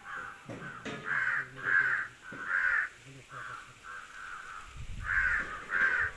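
Crows cawing repeatedly, a run of short harsh caws. The loudest come in two groups, in the first three seconds and again near the end, with fainter caws between.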